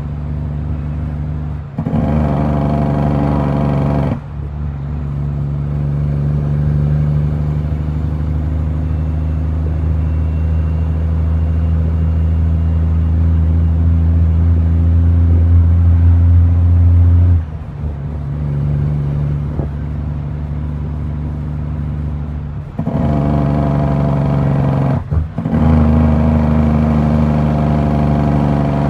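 Heavy diesel truck engine heard from inside the cab, pulling under load. It eases off and comes back on several times, with short drops in the sound.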